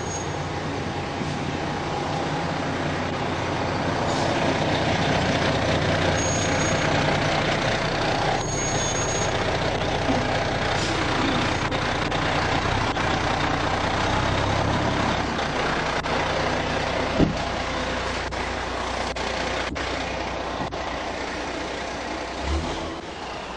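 Fire engine's diesel engine running close by as the truck moves off alongside, slowly fading as it goes. A single sharp knock about seventeen seconds in.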